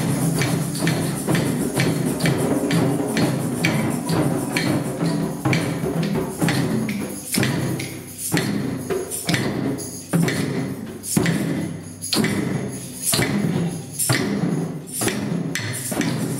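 A group of djembes, tambourines and shakers playing together in a steady rhythm, about two to three strokes a second.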